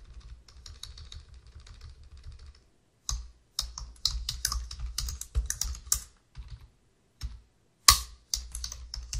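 Computer keyboard typing: quick runs of keystrokes broken by short pauses, with a few sharper, louder key presses in the second half.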